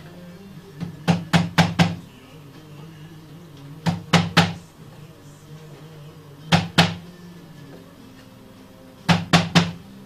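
Sharp wooden knocks in four quick groups of two to five strikes, as a wooden mallet or tool is tapped against the wooden frame of a hand-cranked music box during repair.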